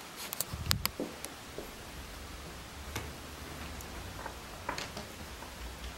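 Quiet room with a low steady hum, a quick cluster of sharp soft clicks in the first second and a few scattered faint clicks and rustles afterwards: small handling and movement noises.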